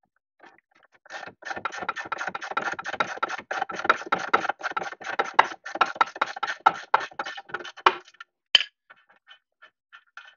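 Ratcheting wrench clicking rapidly as it turns the nut off a tie rod end stud, the footage sped up so the clicks come many to the second. The clicking starts about a second in and stops about eight seconds in, followed by one sharper click.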